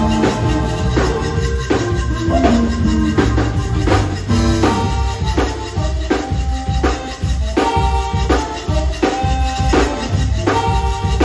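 Live zydeco band playing an instrumental passage: accordion chords over a drum kit with a steady beat, electric bass, and the scraping rattle of a rubboard (frottoir).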